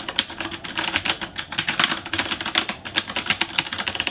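Rapid typing on a mechanical keyboard with Cherry MX Brown switches (Rosewill RK-9000BR): a fast, uneven run of key clacks with no sharp click, the switches being tactile rather than clicky.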